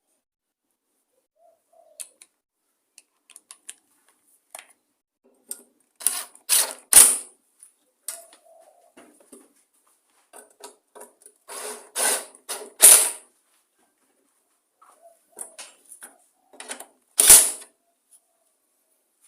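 Hand tools working metal parts as a recoil-starter housing is bolted onto a Briggs & Stratton mower engine: light clicks and three clusters of short rattling bursts, about 6, 12 and 17 seconds in.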